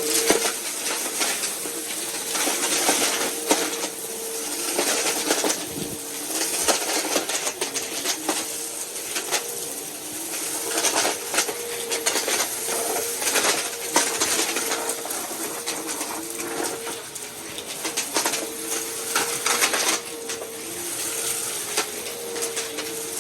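Bissell vacuum cleaner running with a steady motor hum and suction hiss, with crunchy debris crackling and rattling irregularly as it is sucked up.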